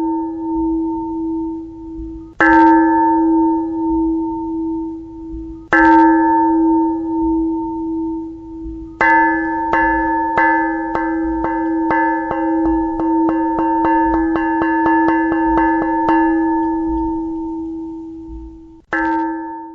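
A large metal bell struck over and over, each strike ringing on at the same pitch: three slow single strikes, then a quick run of strikes for several seconds, then one more strike near the end.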